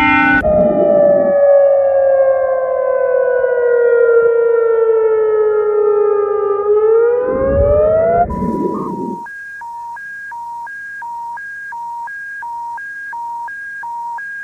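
Emergency warning siren wailing, its pitch falling slowly for about seven seconds and then rising. About eight seconds in, it gives way to a high-low two-tone alert that beeps back and forth at an even pace. Low rumbles sound under the start and around the changeover.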